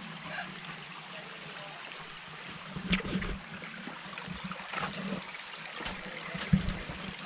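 A creek trickling over rocks in a steady wash, with several sudden thumps about three seconds in and again near the end.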